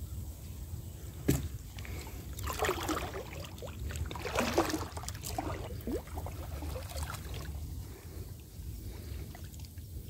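Pond water splashing and sloshing around a man wading waist-deep while handling a gill net, with a sharp knock about a second in and the louder splashes at around two and a half and four and a half seconds. A steady low rumble runs underneath.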